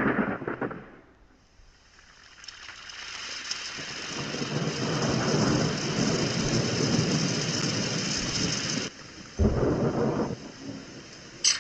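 Rain and thunder. A loud rumble dies away at the start, then a steady rain hiss builds up and cuts off abruptly about nine seconds in, followed by a brief low rumble.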